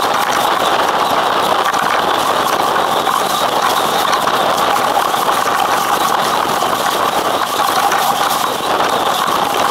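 Steady rushing of wind and water past a sailing yacht moving fast and heeled over under sail.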